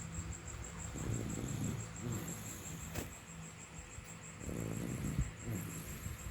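A person asleep snoring: slow, rough, low-pitched snores, one about a second in and another about four and a half seconds in.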